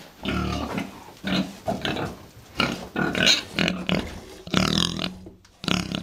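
Domestic pigs grunting in a run of short, separate grunts, about two a second, one pig right up at the microphone with its snout.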